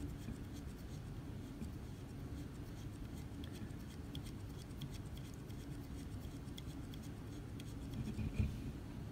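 Faint scratching and tiny clicks of fingers turning the inner lock ring on a Foxeer Arrow V2 FPV camera lens, to hold the focus, over a low steady hum. There is a soft bump near the end.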